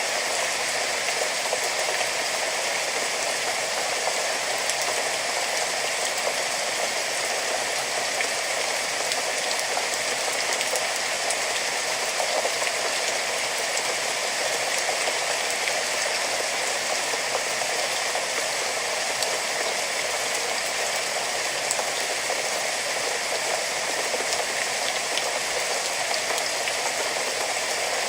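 Steady rain falling, an even hiss of many drops with faint individual drop ticks and no change in intensity.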